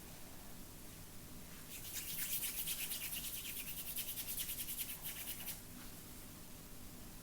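Fast scratchy rubbing from hands working Play-Doh with its plastic tools: about nine strokes a second, starting near two seconds in and stopping at about five and a half seconds.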